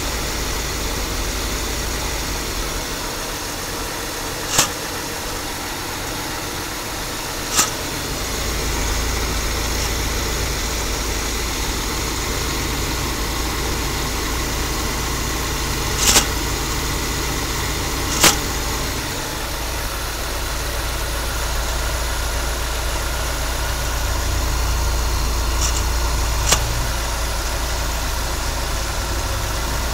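230 inline-six engine running at idle with the grinding noise its owner is trying to trace. Five sharp clicks stand out briefly over the steady running.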